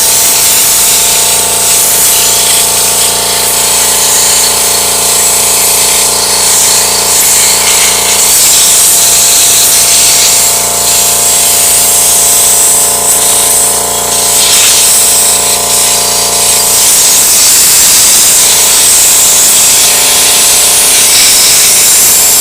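Small air compressor running with its air nozzle blowing a steady, loud hiss of compressed air, the compressor motor humming steadily underneath.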